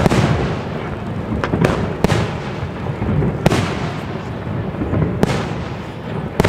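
Professional aerial fireworks shells bursting: about seven sharp bangs at uneven intervals, each trailing off into a rolling rumble.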